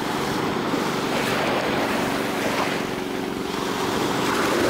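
Small waves washing and breaking against a rocky shore, with the steady hum of a boat engine out on the water.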